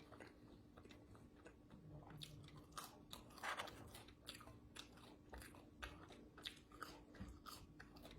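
Close-up chewing and biting of food: irregular small crunches and wet mouth clicks, a little louder about halfway through.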